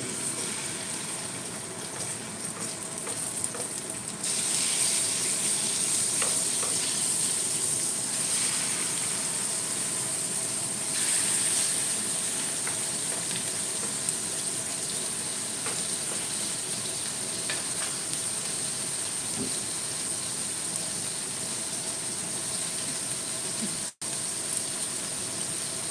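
Raw chicken pieces sizzling in hot oil in a stainless steel pan with garlic, spring onion and chili. The steady hiss rises sharply about four seconds in and again near eleven seconds, and cuts out for an instant near the end.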